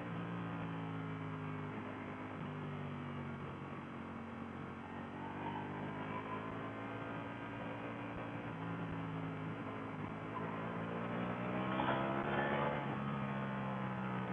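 Ducati Panigale V4S's V4 engine running at a steady cruise in second gear, heard from the rider's seat. It rises slowly in pitch as the bike picks up speed, is loudest about twelve seconds in, then eases off.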